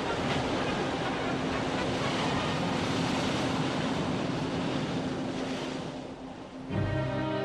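Loud, steady rushing and surging of water as a launched battleship's hull slides down the slipway into the water. About seven seconds in it fades and music comes in.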